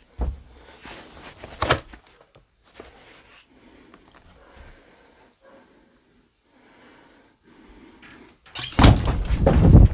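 Rustling and handling noise on a handheld camera's microphone, with a sharp click about two seconds in, then a loud rough rumble of handling noise for about a second near the end.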